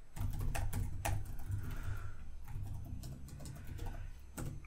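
Typing on a computer keyboard: a run of quick, irregular keystrokes, with one sharper keystroke near the end.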